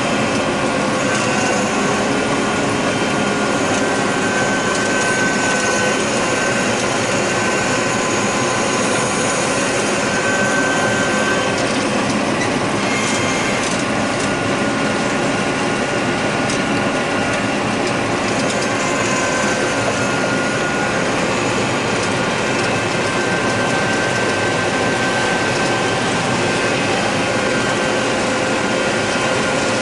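John Deere 9600 combine running while harvesting corn: a steady, loud mechanical din from the engine and the threshing and corn-head drives, with some light clatter.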